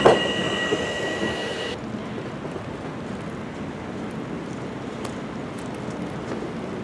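TTC subway train wheels squealing on a curve with a sharp clank at the start; the squeal cuts off suddenly less than two seconds in. After that comes a steady hiss of traffic on a snowy street.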